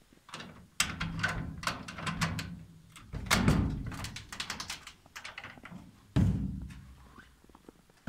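Footsteps crunching in packed snow: a run of short, sharp crackles, with three sudden low thumps, about one, three and six seconds in, that fade away.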